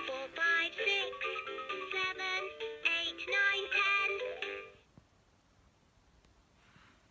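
LeapFrog Fridge Numbers magnetic toy playing its electronic song: a synthesized voice sings a short tune, which cuts off about five seconds in.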